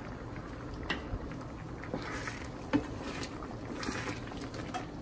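Thick snake gourd and moong dal kootu simmering in a stainless steel pan, bubbling softly, with a few light clicks and a wooden spatula stirring it and scraping the pan.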